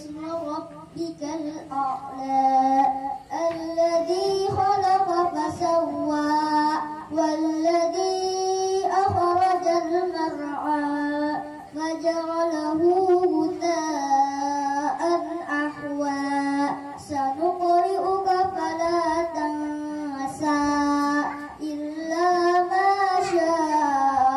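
A young girl reciting the Quran in the melodic tilawah style into a microphone, drawing out long phrases that rise and fall in pitch, with a few short pauses for breath.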